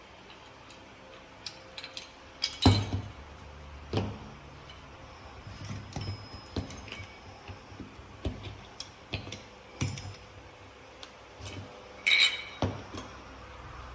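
Scattered light metallic clinks and knocks, a few louder ones with a brief ring, as small metal parts of a tabletop mini bench vise are handled and set down.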